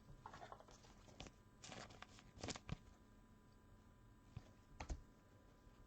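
Faint rustling and light clicks of trading cards and plastic card sleeves being handled, in short scattered bursts with a few slightly louder ones about two seconds in and again near five seconds.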